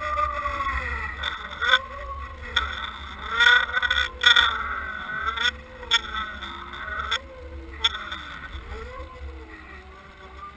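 Boat engine and propeller heard underwater through a towed camera housing: a steady low hum under a whine that rises and falls in pitch about once a second, with a few sharp knocks.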